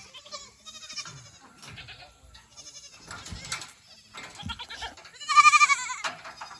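Goats bleating several times with quavering calls, the loudest and longest about five seconds in.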